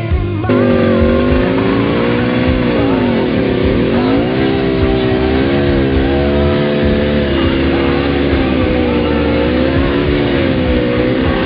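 Fin Komodo off-road vehicle's engine running while driven, its pitch sagging and climbing again as the revs change, starting abruptly about half a second in.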